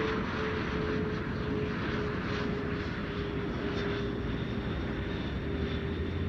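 Steady open-air background noise with a faint distant drone that slowly drops in pitch.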